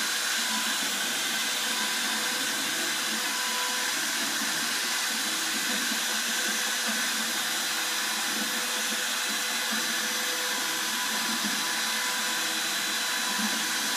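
Portable Handibot CNC router's spindle running steadily as it cuts into wood, a hissing noise with a steady high whine.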